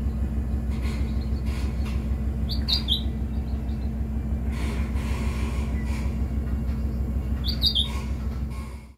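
A steady low mechanical hum runs throughout, and a bird chirps briefly twice, about three seconds in and near the end.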